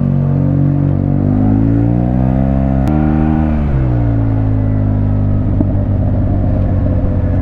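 Yamaha T-Max maxi-scooter's parallel-twin engine pulling away from a standstill, its pitch rising for about three seconds, then dropping sharply as the throttle is eased, and settling into a steady run.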